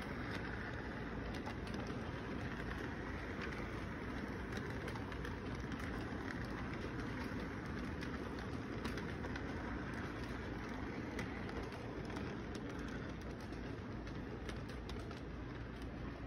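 Model intermodal train rolling past, a steady running rumble with many small clicks from the wheels on the track, easing off slightly near the end as the cars go by.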